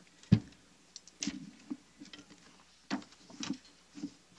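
Scattered clicks and soft knocks, with one sharp thump about a third of a second in and smaller knocks spread through the rest.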